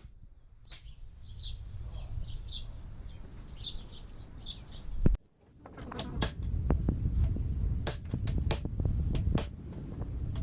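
Birds chirping in short bursts over a low rumble. After a sudden cut about five seconds in, a rapid run of sharp clicks and knocks follows, as of tools and metal engine parts being handled in the 18RG engine teardown.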